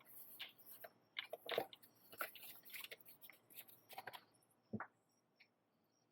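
Faint, irregular clicks and rustling of small parts and wires being handled on a workbench, with a sharper tap about three-quarters of the way through.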